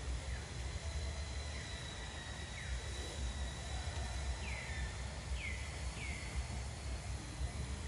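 Outdoor ambience: a steady low rumble with a thin, steady high whine, and short downward-sliding chirps, a few of them close together in the second half.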